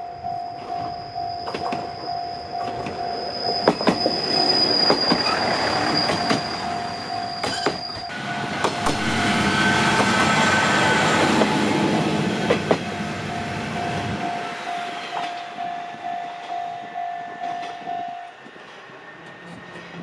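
A Japanese level-crossing warning bell rings in an even repeating ding, about two a second, and stops about 18 seconds in. Meanwhile a Tenryu Hamanako Railway diesel railcar passes, its engine rumble and wheel noise swelling to a peak midway, with sharp clacks as the wheels cross rail joints.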